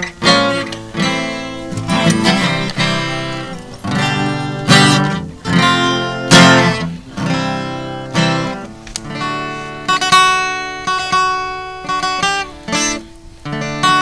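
Acoustic guitar strumming chords, each stroke ringing out and fading, with some held, picked notes near the end.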